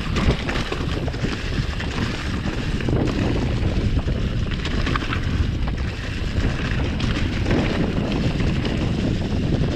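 Wind buffeting the microphone as a mountain bike descends a leaf-covered dirt trail, with the tyres rolling over leaves and soil and frequent small clicks and rattles from the bike over bumps.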